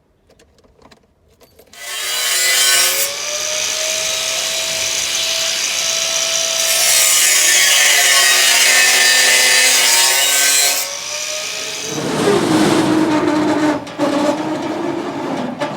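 A power tool cutting or grinding metal pipe, loud and steady with a whining tone that sags and recovers under load. After about ten seconds it gives way to a lower, rougher grinding.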